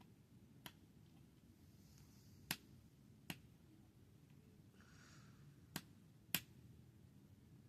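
Five separate sharp clicks and taps from a laptop being handled during reassembly, small plastic and metal parts knocking and snapping into place, over faint room hum; the loudest click comes near the end.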